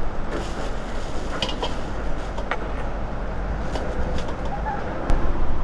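Outdoor background with a steady low rumble and birds calling, with a few short sharp clicks.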